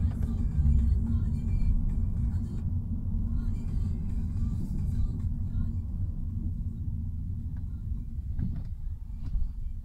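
Opel Vectra engine and road noise heard from inside the cabin: a low rumble that fades gradually as the car slows.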